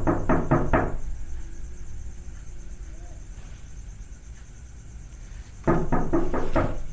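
Two quick runs of knocking on a door, about five raps each, one at the very start and another near the end, with a faint steady hum in between.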